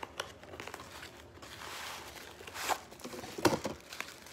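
Tissue paper and a small cardboard gift box being handled as an ornament is unwrapped: soft rustling with a few sharper crinkles, the loudest about three and a half seconds in.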